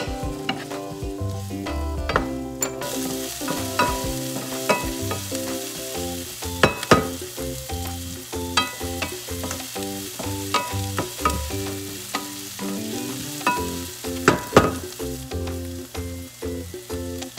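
Diced onions sizzling in a nonstick skillet, with a wooden spatula scraping and tapping against the pan as they are stirred. The sizzle grows louder about three seconds in.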